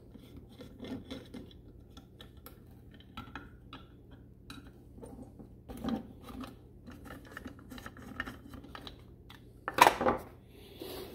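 Phillips screwdriver backing out the small screws that hold the plastic rotor on a GM HEI distributor: faint scattered clicks and scraping of metal on metal. Near the end comes a louder short clatter as the rotor and screwdriver are set down on the workbench.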